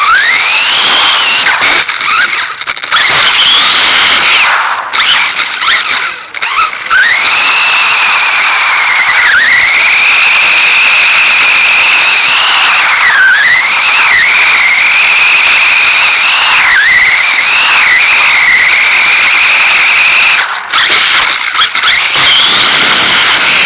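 Dromida DB4.18 electric RC buggy driving, its motor giving a high whine that rises and falls with the throttle over a steady hiss, with a few short let-offs.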